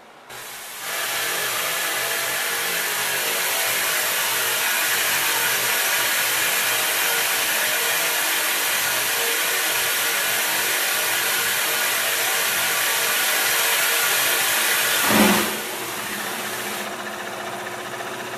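Loud, steady hiss of steam escaping from a burst large-diameter steam pipeline. It drops to a lower level after a brief thump about fifteen seconds in.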